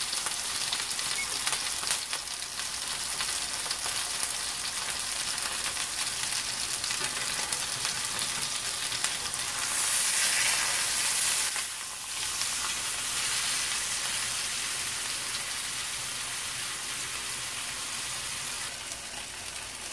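Beef shoulder roast searing in hot oil in a cast-iron skillet: a steady sizzle. It swells louder for a second or two about halfway through, as the roast is lifted with tongs and turned onto another side.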